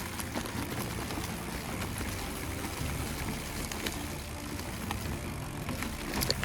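Chromag Stylus hardtail mountain bike rolling over a rough dirt trail: a steady tyre rumble with scattered small clicks and rattles.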